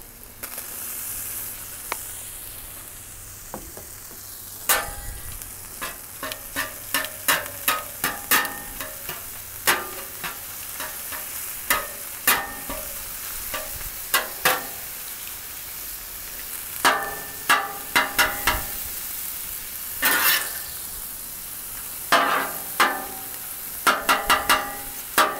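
Ground beef sizzling steadily on a Blackstone flat-top griddle while a large metal spatula chops and scrapes it. The blade strikes the steel cooktop in clusters of sharp, briefly ringing clacks.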